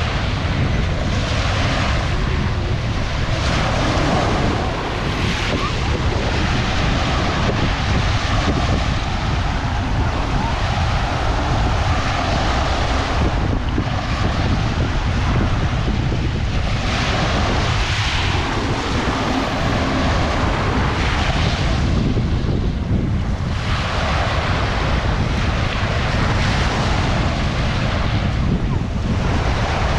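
Strong wind buffeting the microphone with a constant low rumble, over sea waves breaking on the shore in hissing surges every few seconds.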